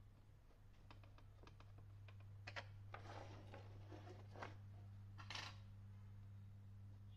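Faint clicks and rustling of hand tools being handled on a workbench, busiest from about two and a half seconds in, over a steady low hum.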